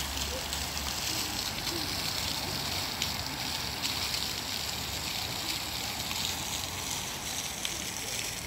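Park fountain's water jet splashing steadily into its basin.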